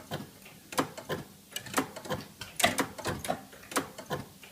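Relays and stepping slave-clock movements of a GPO electric clock system clicking and clunking, several sharp clicks a second at uneven spacing, as the clock pulses are switched by a Mark III relay set.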